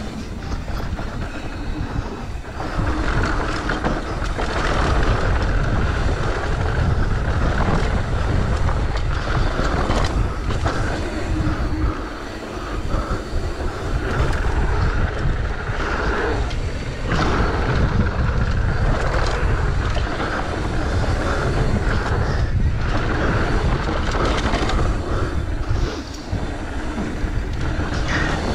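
Wind rushing over a bike-mounted action camera's microphone together with knobbly mountain bike tyres rolling fast over packed dirt and loose gravel, the bike rattling and clattering over bumps. The noise eases briefly twice, about twelve seconds in and near the end.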